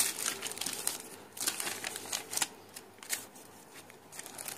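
Plastic courier mailer and paper invoice being handled, rustling and crinkling in irregular short bursts.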